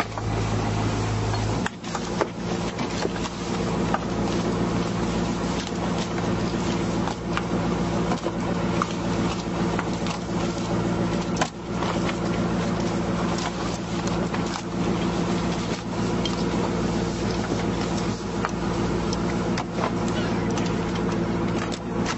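Boat engine running steadily, its tone changing about two seconds in, with scattered knocks and clicks of crabs being handled on the deck.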